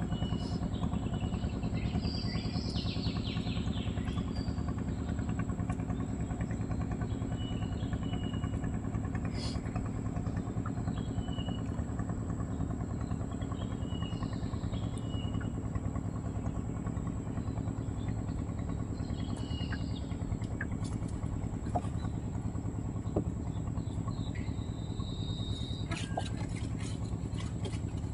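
A small engine running steadily at an even pitch. Short high chirps come every couple of seconds, and a few light clicks sound near the end.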